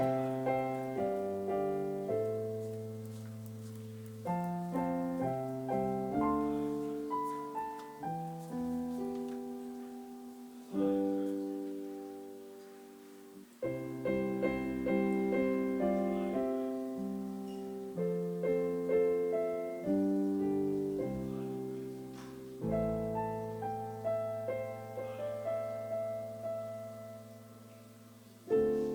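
Solo piano playing slow chordal music in phrases. Each chord is struck and left to ring and fade, with brief lulls between phrases.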